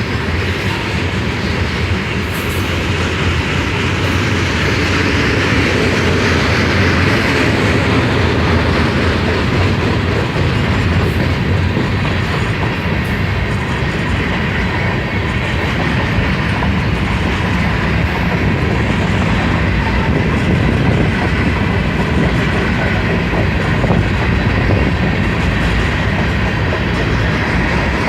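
Long freight train rolling steadily past, its car wheels clacking over the rail joints.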